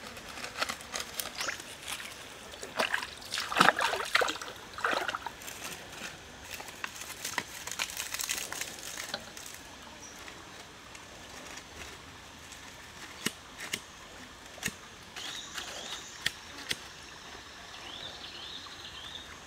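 A shallow creek trickling steadily, with a run of sharp clicks and knocks from dry sticks being handled over a stone fire pit, loudest about four seconds in and sparser after the middle.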